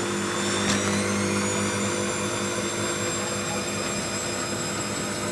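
Washing machine spinning, its motor and drum running steadily with a whine that creeps slightly up in pitch as the spin gathers speed. There is a single click under a second in.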